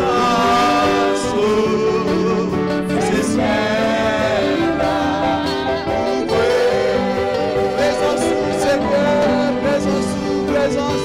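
Gospel hymn sung by a man and a woman through microphones, in long held notes with a wavering pitch, over instrumental accompaniment.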